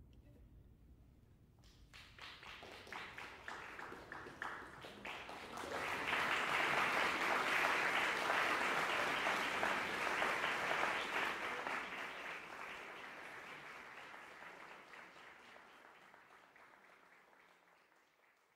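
Audience applause. A few scattered claps start about two seconds in and swell to full applause by about six seconds, which then fades gradually away near the end.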